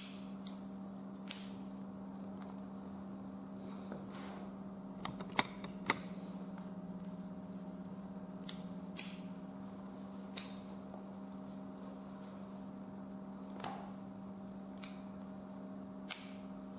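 Scattered sharp metal clicks and taps, about a dozen, as carabiners are handled, clipped and their locking gates secured, over a steady low hum.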